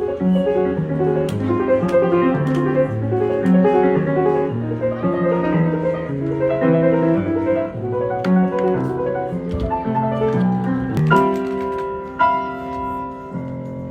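Jazz-style piano music: a busy run of notes over a bass line that steps about twice a second, settling into longer held chords near the end.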